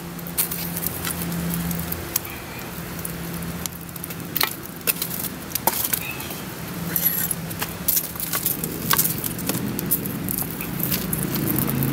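Metal shovel scraping and clinking in a campfire's hot coals and tipping coals onto a Dutch oven lid, with scattered sharp metal clicks and the crackle of the fire.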